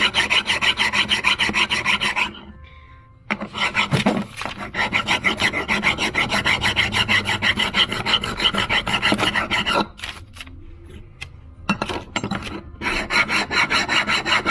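Rapid hand strokes rasping across the metal mounting base of a Holley 94 carburetor as it is worked flat. The strokes come in three runs, with short pauses about two seconds in and about ten seconds in.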